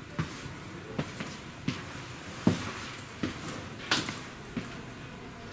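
Footsteps walking along the aisle inside a parked railcar: soft thumps about one every three-quarters of a second, the heaviest step about two and a half seconds in.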